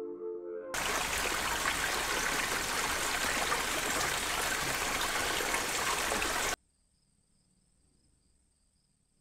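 A small stream running over rocks: a steady rush of water that starts abruptly about a second in and cuts off suddenly near the end. Briefly before it, a held music chord fades out, and after it only a faint, high, steady whine remains.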